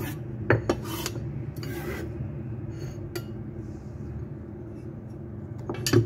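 Steel cleaver blade scraping chopped garlic and ginger across a wooden chopping block and onto a plate, with several quick knocks of the blade on the wood in the first couple of seconds and a louder knock near the end as the cleaver is put down on the board. A steady low hum runs underneath.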